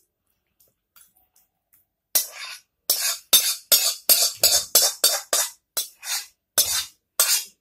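A spoon scraping cooked chicken curry out of a metal wok into a glass bowl: a run of quick scrapes, about three a second, starting about two seconds in.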